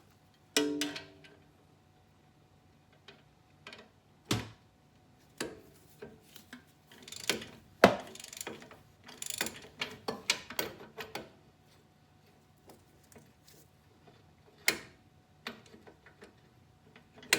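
Hand socket ratchet clicking in short runs, with metal tools clinking and knocking. There is a brief ringing clink about half a second in, and a denser run of clicks in the middle.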